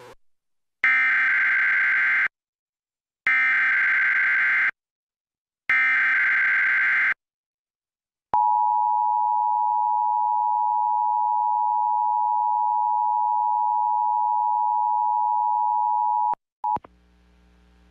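Emergency Alert System tones: three screeching bursts of digital header data, each about a second and a half long, then the steady two-tone EAS attention signal held for about eight seconds before it cuts off. A short blip and a faint low hum follow near the end.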